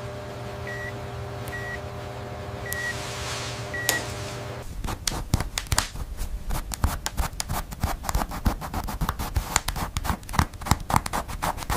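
A medical monitor beeping, a short high tone about once a second over a steady hum. About five seconds in this gives way to a pencil scratching and tapping quickly across paper as it sketches.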